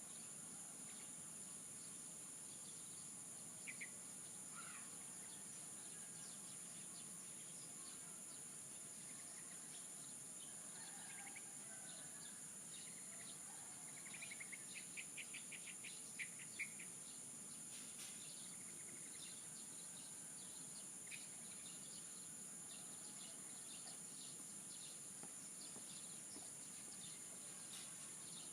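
Steady high-pitched drone of insects, with scattered short bird chirps over it and a quick run of repeated bird notes about halfway through.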